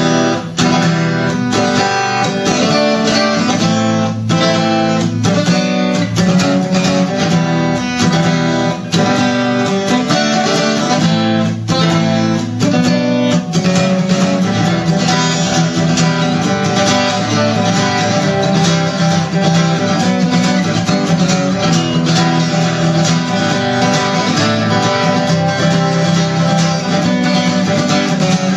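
Acoustic guitar playing the instrumental intro of a song in strummed chords. The strokes are sharp and regular for about the first half, then the chords ring on more smoothly.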